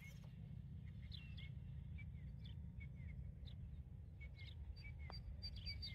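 Songbirds chirping in short, irregular calls, with a quick high run of notes near the end, over a steady low rumble of wind on the microphone.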